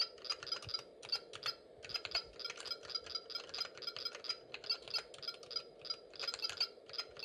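Rapid keystrokes on a vintage Toshiba PA7354E numpad with linear Mitsumi switches, each press clicking and setting off a short high beep from a PT3110P05Q piezo beeper at QMK's default settings. The typing runs in quick flurries, with two brief pauses.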